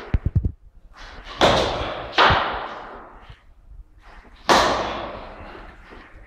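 Baseball bat cracking against balls, with a long echo from a large room. There are three sharp hits: about a second and a half in, just after two seconds, and about four and a half seconds in. A few dull low thumps come at the very start.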